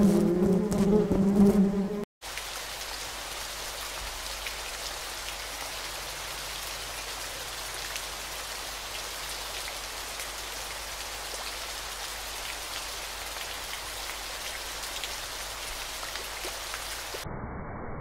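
A buzzing hum with harmonics stops abruptly about two seconds in. A steady, even hiss of water follows, bright and fine like rain. Near the end it gives way to the duller, muffled rush of the waterfall.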